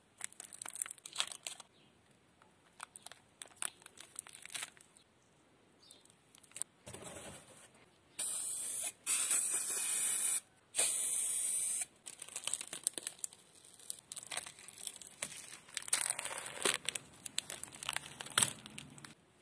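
Clear plastic film crinkling and tearing as it is handled around a tool's handle, then three even hissing bursts from an aerosol spray-paint can, each about a second long and cut off sharply, then more crinkling and peeling of the plastic film near the end.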